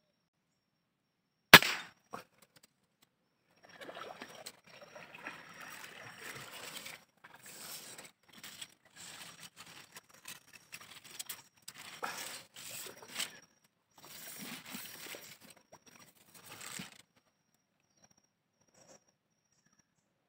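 A single sharp rifle shot about one and a half seconds in, then a shot wild duck thrashing and splashing in the water in irregular bursts for about thirteen seconds before going still.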